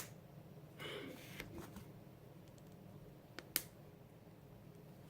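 Small plastic Lego pieces being handled and snapped together: a sharp click at the start, a brief rustle about a second in, and two sharp clicks close together about three and a half seconds in.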